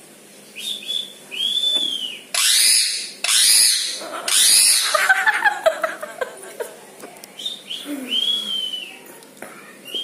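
Indian ringneck parakeet calling: three loud, harsh screeches in quick succession about two to five seconds in, followed by shorter bending chatter, amid arching whistled notes before and after.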